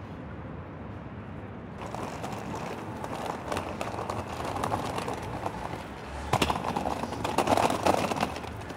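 Hard wheels of a rolling suitcase rattling over pavement, growing louder as it comes closer, with sharp clicks and knocks near the end. A low city hum sits underneath before the rolling starts.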